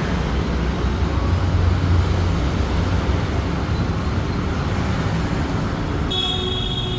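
Busy street traffic: a steady mix of engine rumble and road noise, with a short, high, steady tone near the end.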